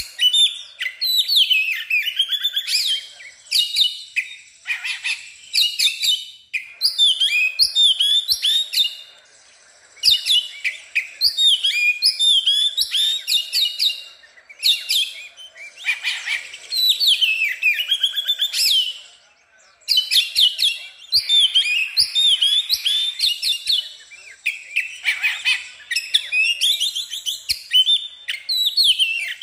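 Oriental magpie-robin singing loudly in full song: long runs of quick, varied whistled notes, broken by a few brief pauses.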